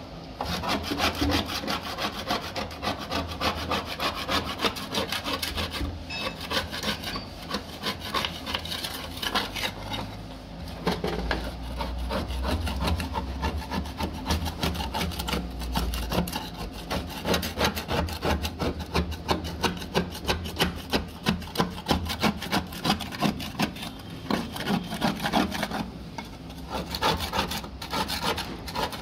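A small flat metal scraper blade scraped in quick repeated strokes across a rusty steel vehicle floor pan, rasping off caked rust and matted fibrous padding, with brief pauses between runs of strokes.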